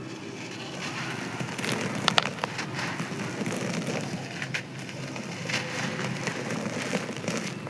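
Dry sand-cement chunks crumbling and crunching, a dense gritty crackle with a few sharper cracks about two seconds in and again near the middle.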